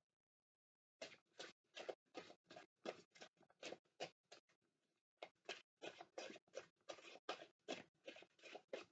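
Tarot cards being shuffled by hand: soft, quick card slaps at about three a second, with a brief pause partway through. They start about a second in.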